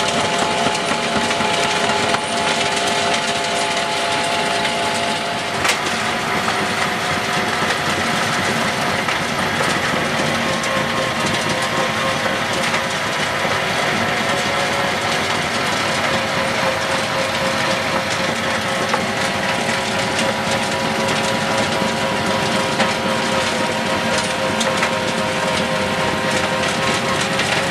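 Tractor-driven FAE stone crusher head running steadily as it crushes pit-run gravel: a continuous mechanical din with steady engine tones under it. One sharp crack stands out about six seconds in.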